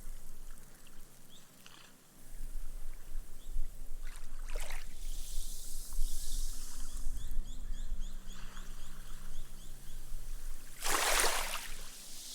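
Small waves lapping on a sandy beach, the water washing up and fizzing as its foam sinks into the sand. A wavelet breaks briefly about four and a half seconds in, and a louder one breaks near the end.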